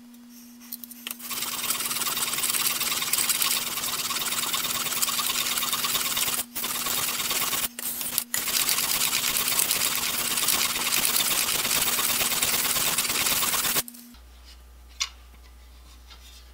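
Steel plane iron, clamped in a roller honing guide, rubbing back and forth on a sharpening stone in a continuous gritty scrape, with two or three brief pauses near the middle, stopping a couple of seconds before the end. This is honing the bevel of a blade that was ground deeply to remove large nicks, using the guide to reshape the whole edge.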